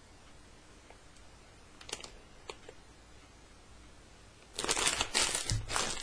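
A few light clicks, then about a second and a half of loud rustling and crinkling near the end as the pack of rubber twist ties is handled.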